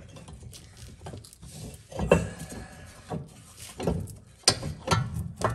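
Scattered knocks and clunks as a Yugo's driver's-side front CV axle is worked by hand and pulled loose from the transmission, the loudest about two seconds in.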